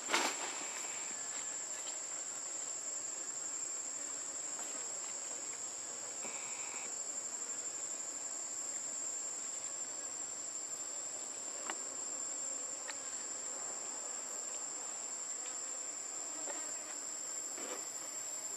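Steady high-pitched trilling of an insect chorus, unbroken throughout, with a few faint clicks.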